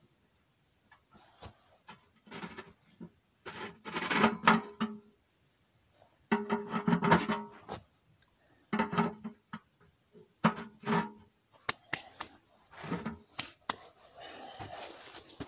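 A portable metal wood-burning stove being handled at its door: several separate bursts of scraping and clunking, the loudest about four and seven seconds in.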